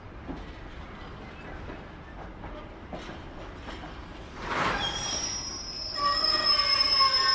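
Container flat wagons of a freight train rolling past, wheels clicking over rail joints. About four and a half seconds in comes a rush of noise, then from about six seconds a loud, steady, high-pitched squeal of steel wheels on the rails.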